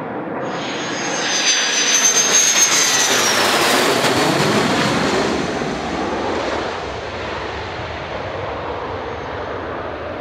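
F-16 fighter jet's turbofan engine as the jet passes low over the runway: a high whine cuts in suddenly and slowly drops in pitch as it goes by. Then the engine roar fades as the jet flies away.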